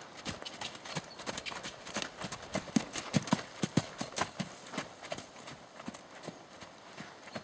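Hoofbeats of a ridden horse on a sandy arena surface, a quick regular run of dull thuds. They grow loudest in the middle as the horse passes close, then fade as it moves away.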